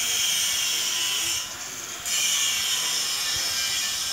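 A steady, shrill, high-pitched buzz that breaks off for about half a second midway and then starts up again.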